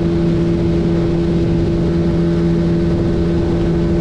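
Motorboat engine running steadily at constant revs: an even hum over a low rumble.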